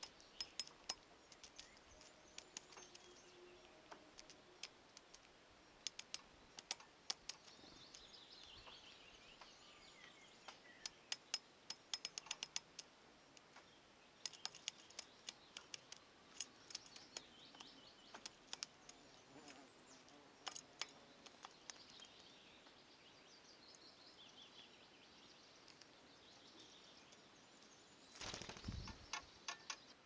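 Great spotted woodpecker pecking at peanuts in a wire-mesh feeder: irregular sharp metallic taps and clinks, often in quick runs, with faint birdsong in the background. A short burst of rustling noise comes near the end.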